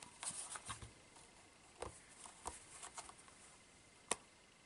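Faint rustling and a few light taps of a folded cardstock box being handled.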